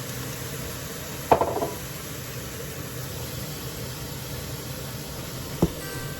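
A cooking utensil striking a pan twice over a steady hiss: a ringing clatter about a second in, then a single sharp knock near the end.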